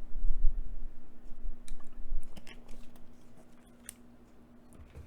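A few short, sharp clicks of a computer mouse, spaced irregularly, over a steady low electrical hum.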